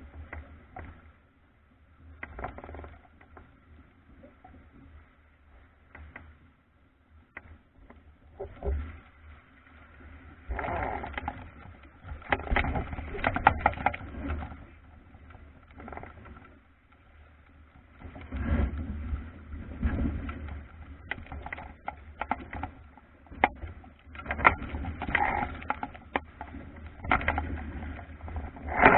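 Wind on the microphone and water rushing and slapping against a sailing dinghy's hull as it beats through chop. The sound comes in uneven surges with scattered knocks, loudest in the second half.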